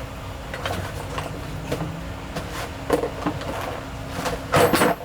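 Hand tools being handled: a series of short metal knocks and clinks, with a louder rattle near the end.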